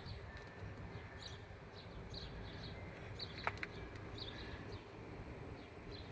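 Small birds chirping, short high chirps repeating irregularly over a low steady background rumble, with one sharp click about halfway through.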